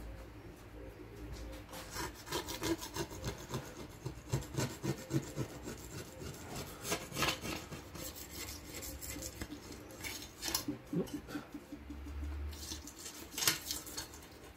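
Stanley knife blade scraping crud off a glass pane in short, repeated strokes, starting about two seconds in.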